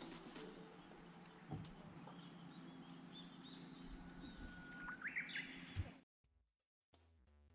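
Faint birds chirping and calling, with a faint steady low hum beneath; it all cuts off suddenly about six seconds in.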